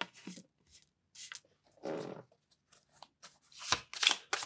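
A tarot deck being shuffled by hand: soft card rustles and slaps, scattered at first, then louder and quicker in the last second.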